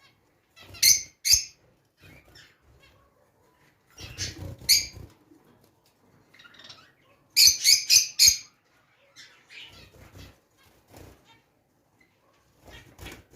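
Caged ornamental birds chirping in short, scattered bursts, with a quick run of about five sharp calls just past the middle.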